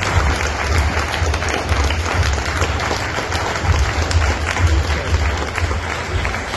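Audience applauding, a dense, steady clatter of many hands clapping, with a low rumble underneath.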